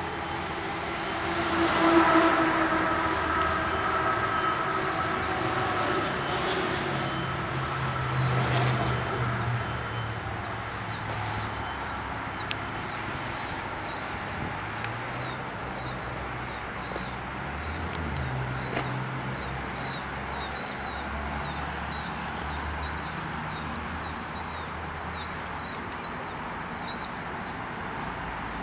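Outdoor traffic noise from vehicles passing, swelling twice in the first ten seconds, with a small bird chirping over and over from about halfway through.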